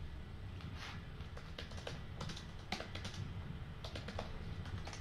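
Typing on a computer keyboard: a dozen or so irregular keystroke clicks over a low steady room hum.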